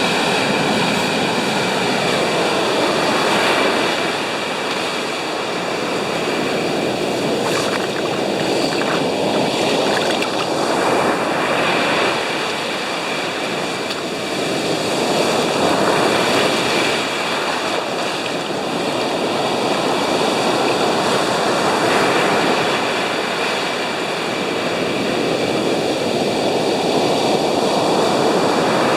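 Storm surf breaking on a sandy beach: a loud, continuous wash of waves that swells and eases every few seconds, with wind blowing.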